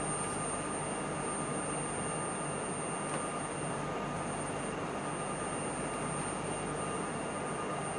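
Automatic edge lining machine running: a steady mechanical whir with a constant high whine over it.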